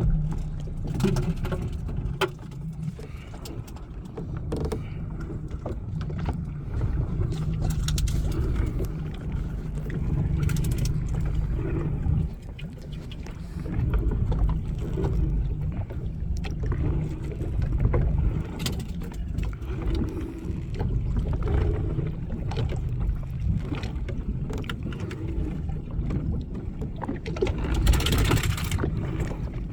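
Small fishing boat at sea: a steady low rumble with water and wind noise, broken by scattered knocks and clatters, and a loud rush of noise near the end.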